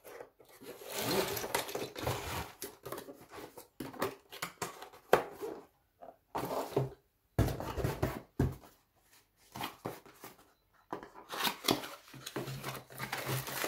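Parts and packaging being handled by hand: irregular rustling of cardboard and wrapping with scattered sharp knocks and clicks, as a folded metal light stand is put down and a small cardboard box is picked up.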